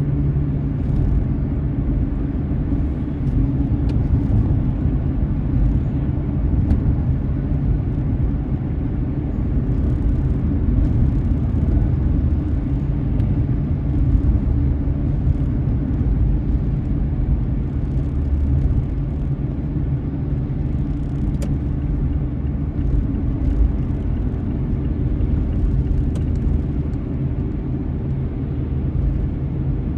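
Steady low rumble of a car on the move, engine and road noise as picked up by a dashcam inside the car, with faint scattered ticks.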